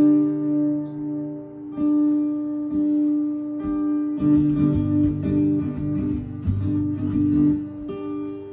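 Acoustic guitar played solo. Chords are struck about once a second and left to ring, then the playing turns busier from about four seconds in.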